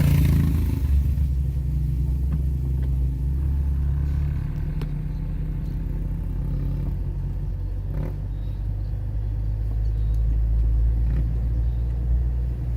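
A moving car's engine and road noise, a steady low rumble with a few faint clicks.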